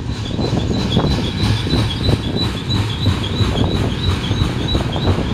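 Freight train of tank cars rolling past: a steady rumble and clatter of steel wheels on the rails. A row of short high chirps repeats about four times a second over it.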